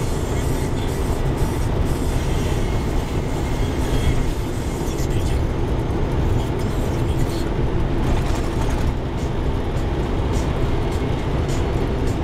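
Cab noise of a Volvo FH16 580 truck driving at road speed: its 16-litre straight-six diesel drones steadily under tyre and road noise, with light clicking rattles from the cab now and then.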